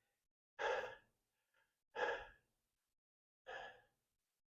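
A man's breathing: three short, faint breaths or sighs about a second and a half apart.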